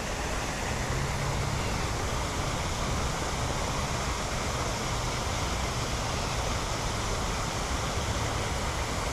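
Steady, even rush of running water, like a garden fountain or waterfall.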